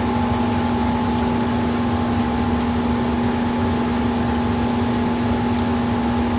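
Steady mechanical hum of a workshop machine, a low drone carrying a few fixed tones, over rear differential gear oil draining in a thin stream into a metal drain pan, with a few faint drips.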